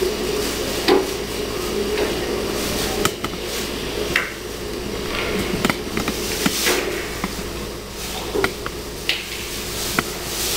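Scattered sharp slaps and foot stamps of a martial artist performing a kung fu form, about one every second at irregular intervals, heard through a TV speaker over a steady hum and tape hiss.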